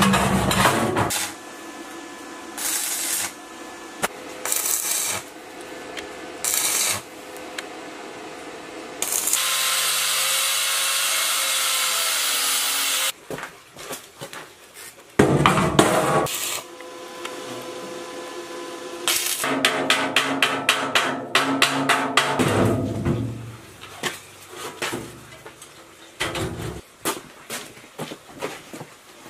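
Workshop metalworking sounds in short separate bursts: sheet-steel panels and a steel frame clanking and scraping as they are handled, with a power tool running in a few spells, the longest about four seconds, and a quick run of ticks near the end.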